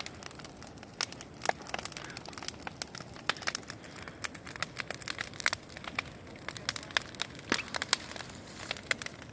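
Large bonfire of rubbish crackling, with irregular sharp pops several times a second over a low steady hiss.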